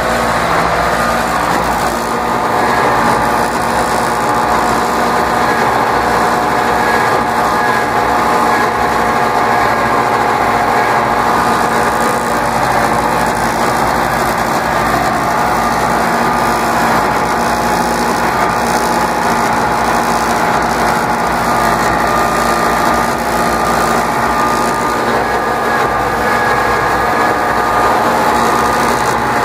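David Brown 995's three-cylinder diesel engine running steadily under load as the tractor pulls a three-bottom plow through the soil, heard from the cab.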